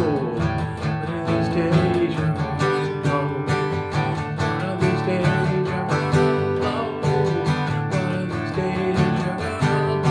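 Acoustic guitar strummed in a steady rhythm: an instrumental passage of the song with no singing.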